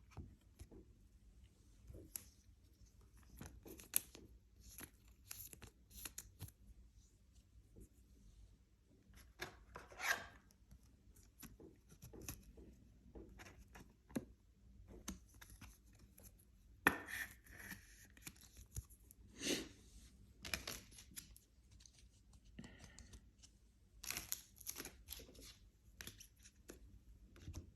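Faint, scattered rustling, tearing and clicking of trading cards and their wrappers being handled, with a few louder rustles.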